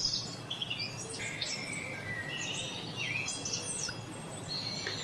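Several songbirds chirping and singing, many short overlapping calls and trills, over a steady low background hum.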